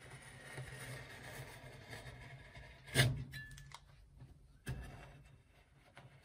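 Metal spatula scraping across the frozen steel plate of a rolled-ice-cream machine, rolling up a sheet of strawberry marshmallow ice cream. A sharp metallic knock with a short ring about three seconds in, and a second knock about a second and a half later. A steady low hum runs underneath.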